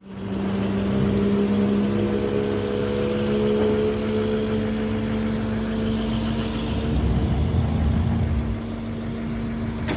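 Engine idling steadily, a hum that creeps slightly up in pitch, with a low rumble swelling about seven seconds in.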